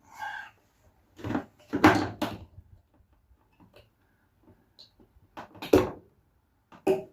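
A few separate knocks and clunks of hard objects being handled and set down. The loudest come about two seconds in and again near six seconds, with a smaller one near the end.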